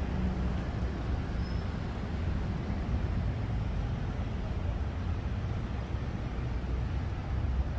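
Steady low rumble of road traffic, with no distinct events standing out.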